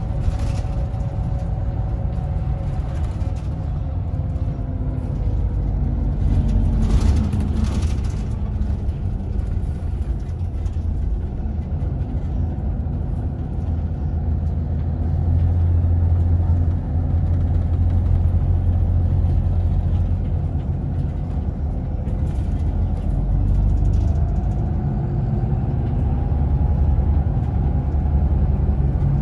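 Scania Irizar Intercentury bus heard from inside the passenger cabin while under way: a steady low engine and road rumble, with a whine that slowly falls in pitch and rises again near the end. A short clatter about seven seconds in.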